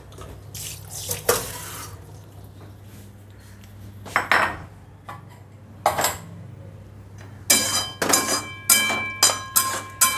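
Kitchen utensils clattering, then a metal spatula striking and scraping a steel kadai of pasta in a quick run of ringing clinks near the end. A low steady hum runs underneath.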